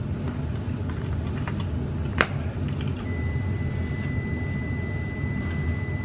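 Multimeter continuity beep: a steady high-pitched tone that comes on about halfway in and holds, as the probes bridge a circuit breaker's screw terminal and back contact, showing that side of the breaker has continuity. A single sharp click comes a second before it, over a steady low hum.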